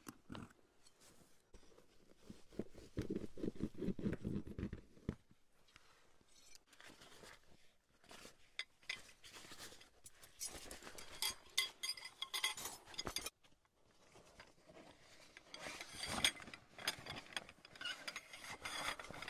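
Camping gear being handled and packed up: bursts of rubbing and scraping with clinks and rattles of cups and utensils, in two spells in the second half. About three seconds in there is also a low rumble lasting roughly two seconds.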